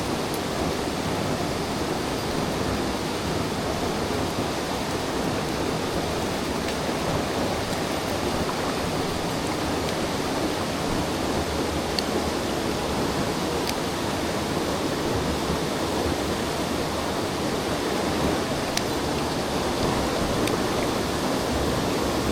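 Steady rushing of a mountain stream, water running over rocks, with a few faint ticks.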